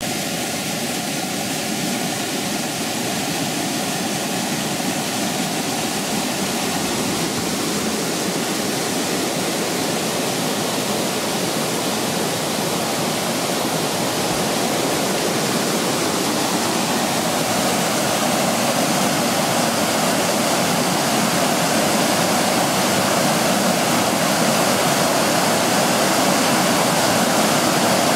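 Water rushing steadily over the low rock-ledge cascades of a forest river, a continuous rushing that grows slightly louder toward the end.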